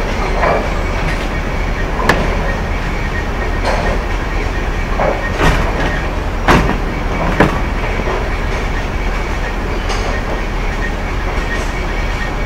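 Bowling alley din: a steady rolling rumble of balls travelling down the lanes, with sharp clatters of pins and balls standing out four times, the loudest a little past the middle.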